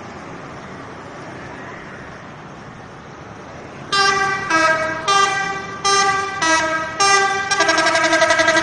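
Telolet horn, the multi-tone musical air horn of an Indonesian bus, starting about four seconds in: a string of short blasts of a few notes each, shifting in pitch, then a fast warbling chord held near the end. Before it, steady road traffic noise.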